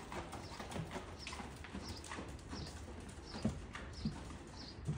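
Horse's hooves thudding on the soft sand footing of an arena in an even rhythm, roughly three beats every two seconds.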